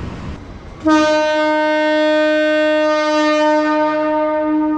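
A train horn sounding one long, steady note that starts abruptly about a second in.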